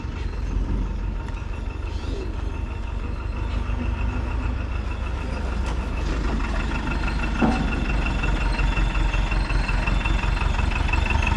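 Light flatbed truck's engine running as it drives up, steadily getting louder over the second half.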